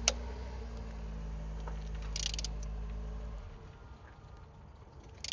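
Click-type torque wrench working cylinder head bolts: a sharp click just after the start, then a quick run of ratchet clicks about two seconds in, and more clicks near the end. A low steady hum underneath stops about three and a half seconds in.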